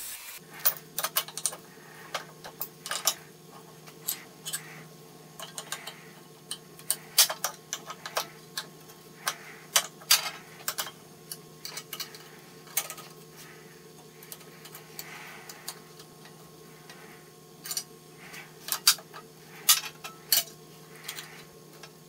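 Irregular light metallic clicks and clinks as a steel switch plate and its fittings are handled and fitted onto a cast-iron drill press head, over a faint steady hum.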